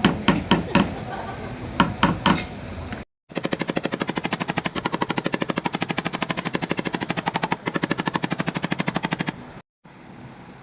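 Paintless dent repair tapping on a car tailgate's sheet metal: a few separate sharp knocks, then after a cut a fast, even train of taps at about a dozen a second for some six seconds, ending in a cut to faint room tone.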